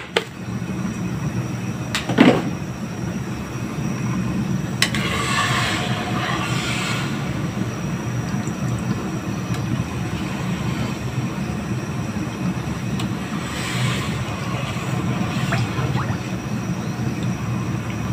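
Steady low rush of a gas stove burner heating a large aluminium pot of sugar water. A metal ladle stirs and scrapes in the pot now and then, about five to seven seconds in and again around fourteen seconds.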